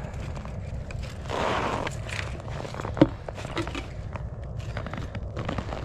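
Footsteps crunching on snow-covered ice, with a sharp click about three seconds in over a steady low rumble.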